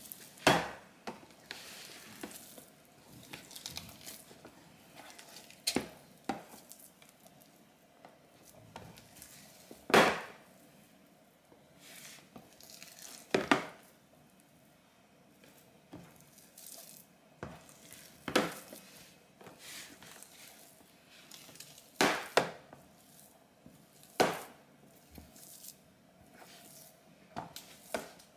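Hands kneading and squeezing sticky rye sourdough dough in a clear plastic container: soft squishing and rubbing, with a sharp knock against the plastic every few seconds.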